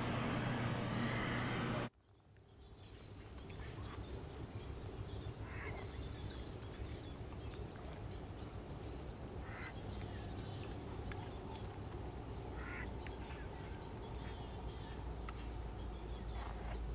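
Steady city traffic noise cuts off abruptly about two seconds in, and a quieter pond-side ambience fades in: a low distant hum, small birds chirping, and a few short duck quacks.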